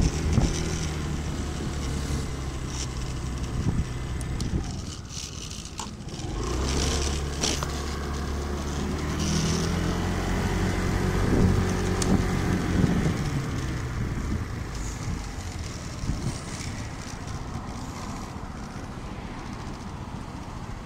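Motor scooter engine running under the rider, building as it picks up speed for several seconds, then easing off as the scooter slows in traffic near the end.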